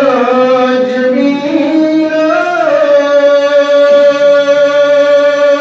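A man singing a naat solo, with no instruments, his voice gliding between notes in the first half and then settling on one long held note to the end.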